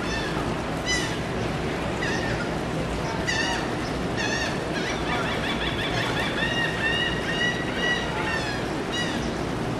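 Gulls calling again and again, short honking notes that now and then run into a quick series, over a steady background noise.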